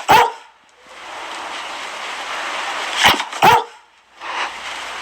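A Dalmatian barking: one bark just after the start, then two barks in quick succession about three seconds in, over a steady hiss.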